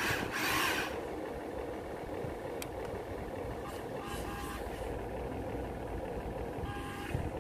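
Huina 1593 radio-controlled toy excavator's electric motors whining as its boom and bucket move, the whine coming in short steady-pitched spells from about four seconds in, after a brief rush of noise in the first second.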